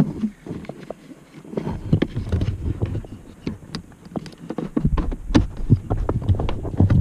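Irregular plastic clicks and knocks as hands handle a blend door actuator and its wiring connector, fitting them into place on the heater box.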